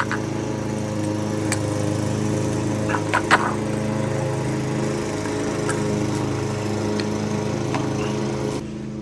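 A motor running with a steady, even hum, which stops shortly before the end, with a few light clicks of parts being handled about one and a half and three seconds in.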